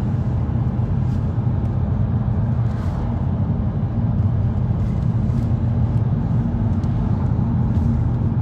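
Steady engine and road drone heard inside the cabin of a car cruising at a constant speed, in limp mode with the engine management light on.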